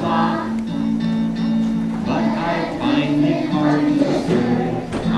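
A song from a stage musical: singing over instrumental accompaniment, with long held low notes underneath.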